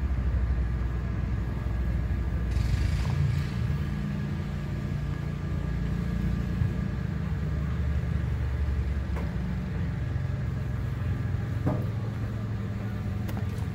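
Steady low machinery rumble among steam traction engines having their boilers fired, with a brief hiss about two and a half seconds in.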